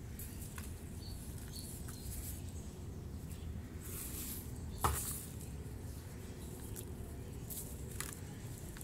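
Hard-packed brown sand crumbling and dropping into a tub of muddy water: faint scattered patters and small splashes, with one sharp splash about five seconds in as the loudest sound.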